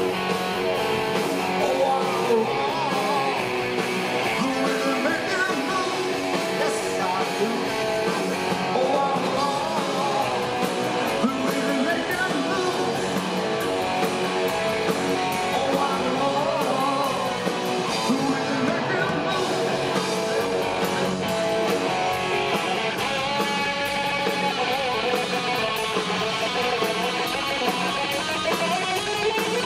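Live rock band playing: a male lead singer over electric guitars and drums.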